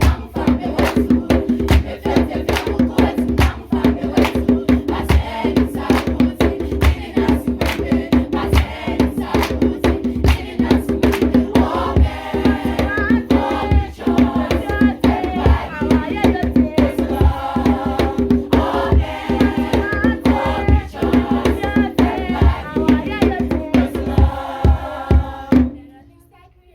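A group of children singing together to a steady drum beat with shaken rattles. The music breaks off abruptly near the end.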